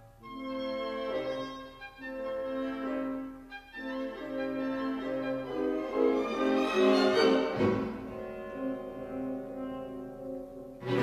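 Cello concerto music: cello and orchestral strings playing a passage of held bowed notes that swells louder about six to seven seconds in.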